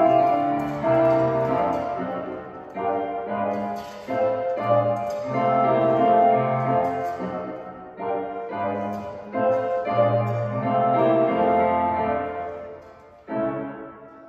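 Solo piano playing classical-style music in phrases of melody and chords: accompaniment for a ballet barre exercise.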